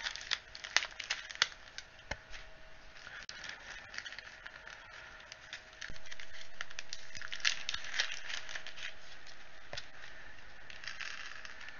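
A small plastic bag crinkling as it is handled and opened, with scattered sharp clicks of tiny miniature skulls rattling against each other.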